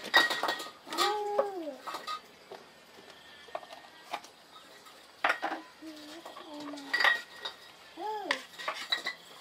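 Utensils clinking against dishes several times. Three short voice-like calls fall in between: about a second in, in the middle, and near the end.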